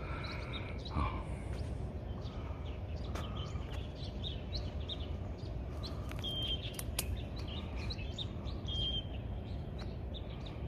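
Wild birds chirping and calling in scattered short notes, with two brief clear whistled notes in the second half, over a steady low background rumble.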